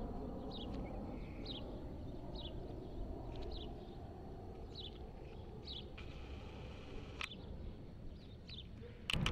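Boeing 737 twin turbofan engines heard overhead as a low, steady rumble that slowly fades as the airliner moves away. A small bird chirps over it with short high notes about once a second. Near the end the sound jumps abruptly to a louder rumble.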